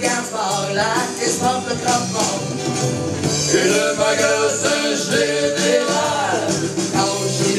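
Live song: electric guitar accompaniment under a sung melody line that bends up and down in pitch.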